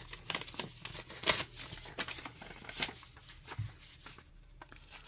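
A sheet of paper rustling and crackling as it is pulled from a notepad and handled, with several sharp crackles in the first three seconds before it goes quieter.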